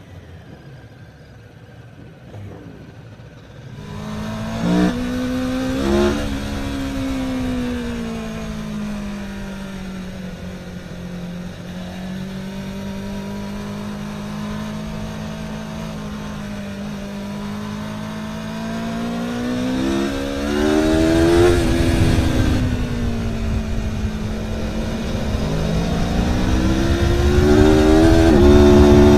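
Aprilia Tuono motorcycle engine, coming in loudly about four seconds in with two quick revs, then running with its pitch slowly rising and falling. Near the end it climbs and grows louder, its note jumping in sudden steps.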